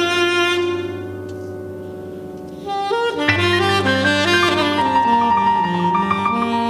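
Tenor saxophone and keyboard playing smooth jazz: a long held saxophone note fades away, and about three seconds in a quick passage of moving notes comes in over keyboard chords and a steady bass line.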